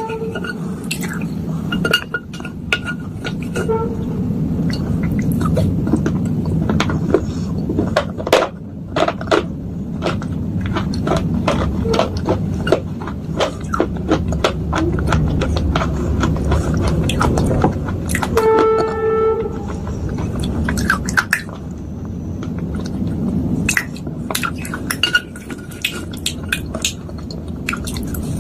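A metal spoon crunching and scraping soaked clay and slate pieces in a bowl: a dense grinding crunch with many sharp clicks and clinks of spoon on bowl. About two-thirds through, a brief steady horn-like tone sounds.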